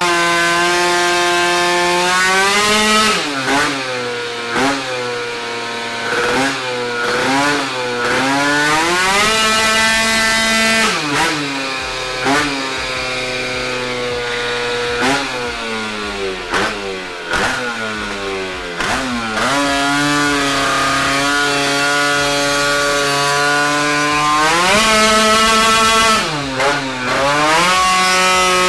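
A Yamaha Aerox scooter's two-stroke engine runs on a dyno on its previous carburettor setup. It is revved so its pitch swoops down and back up several times, holding steady in between.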